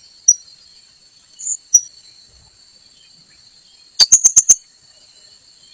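Srindit (blue-crowned hanging parrot) calls: single sharp, high chirps, then a quick run of five loud chirps about four seconds in, over a steady high drone of insects.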